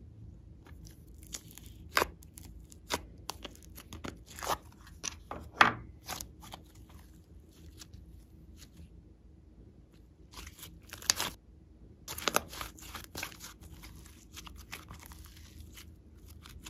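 Glossy slime being pulled from its plastic tray and squeezed by hand, giving irregular sharp sticky pops and crackles in two bursts, with a quieter pause between them.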